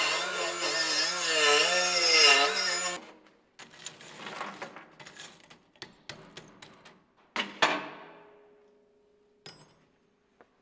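Handheld die grinder grinding steel, its whine wavering in pitch as the load changes, stopping suddenly about three seconds in. Then scattered light clicks and knocks, with two louder knocks about seven and a half seconds in.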